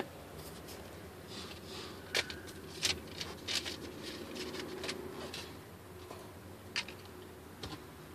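Phone handling noise: fabric rubbing against the microphone and a few scattered light clicks and knocks, over a faint steady hum.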